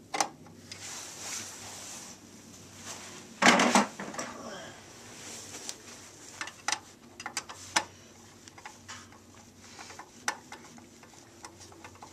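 Scattered clicks, clinks and taps of tools and small metal parts being handled while wiring connections are worked and tightened, with a short, louder rush of noise about three and a half seconds in.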